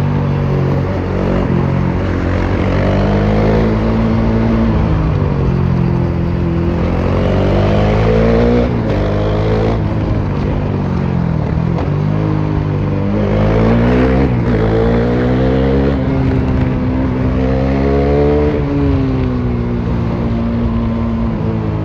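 Bajaj Dominar 400's single-cylinder engine running with no muffler at highway speed, its raw exhaust note loud throughout. The pitch climbs steadily as the revs build and drops back sharply four times, the last near the end.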